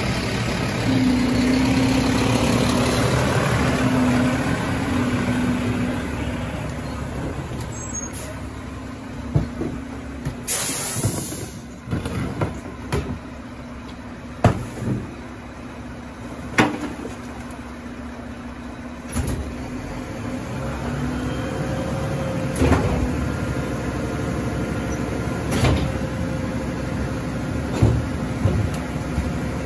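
Mack LR rear-loader garbage truck at work. A loud steady running sound with a wavering whine, typical of the engine driving the Heil packer's hydraulics, eases off after the first several seconds. About ten seconds in comes a short hiss of air, then a string of sharp bangs and clunks over the idling truck.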